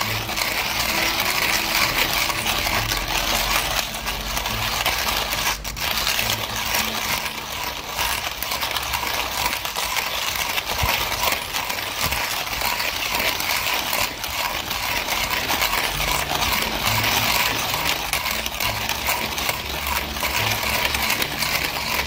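Tefal semi-automatic espresso machine running steadily: a continuous hiss with a rattling buzz that does not let up.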